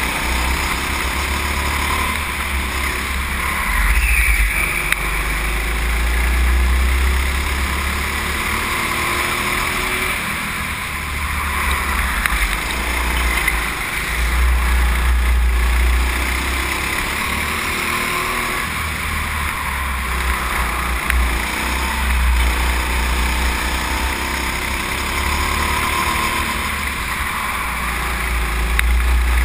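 Go-kart engine heard from a camera mounted on the kart as it laps the track, its note rising and easing with the throttle through the corners, under a heavy low rumble that swells and fades every few seconds.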